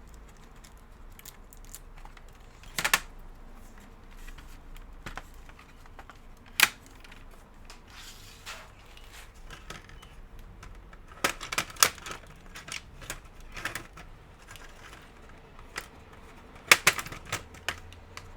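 Irregular sharp clicks and knocks of a laptop's plastic parts and tools being handled during disassembly, with a few loud clicks standing out: one about three seconds in, one near the middle, and clusters later on.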